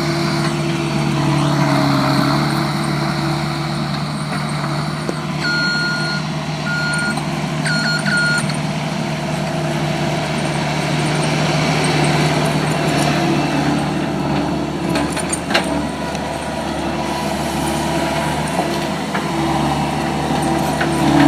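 Skid steer's engine running steadily while it works dirt, its pitch shifting a little as the load changes. A reversing alarm beeps about four times, about five to eight seconds in.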